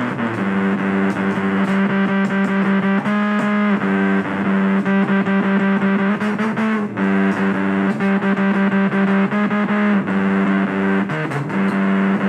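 Music led by a distorted electric guitar playing held notes that change every couple of seconds.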